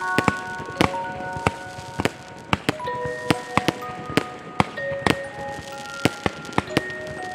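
Background music: a melody of held notes changing pitch every half second or so, over frequent sharp, irregular clicks.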